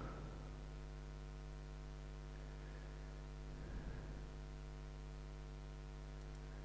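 Steady low electrical mains hum with a stack of even overtones, picked up in the recording chain; a faint brief noise about four seconds in.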